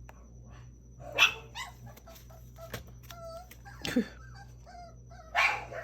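Pet dog barking three times, with short high whines between the barks.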